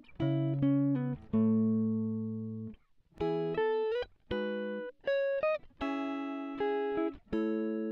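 Background music: a clean guitar plays a melody of single notes and chords, each ringing out and fading, with a brief pause about three seconds in.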